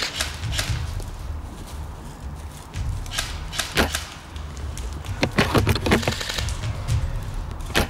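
Airsoft guns firing: scattered sharp clacks, then a rapid run of shots between about five and six seconds in, and one more strong clack near the end.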